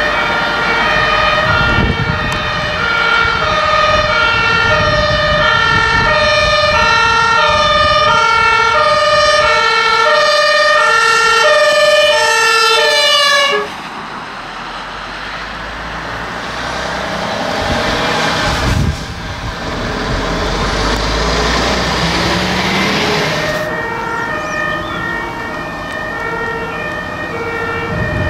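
German two-tone emergency vehicle siren (Martinshorn) alternating steadily between a high and a low note; it cuts off suddenly about halfway through. Engine and road noise follow, with an engine revving up, and a two-tone siren starts again near the end.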